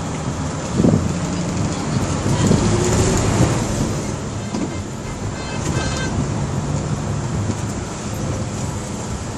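Bus engine running steadily with road and tyre noise, heard from inside the bus cabin while it drives along. A brief high-pitched beep sounds about halfway through.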